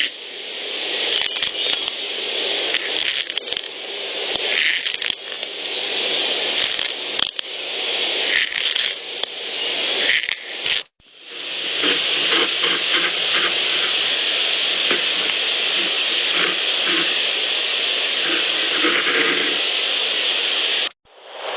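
Field-recorder playback of a long rasping, scratching noise over steady hiss, the sound likened to Velcro being ripped or a tree being shredded, which the recordist attributes to a Sasquatch. Two clips play back to back, with a sharp cut about eleven seconds in.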